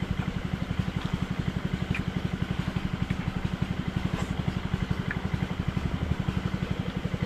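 A small engine running steadily at idle, a fast, even putter that holds unchanged throughout.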